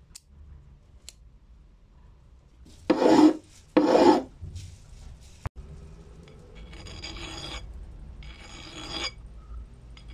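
A flat hand file rasping across the steel hex head of a bolt in separate strokes, each under a second long. Two louder strokes come about three and four seconds in, and the later strokes are quieter.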